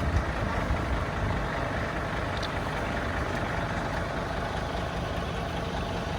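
A steady low rumble of an engine idling, with a faint steady hum over it.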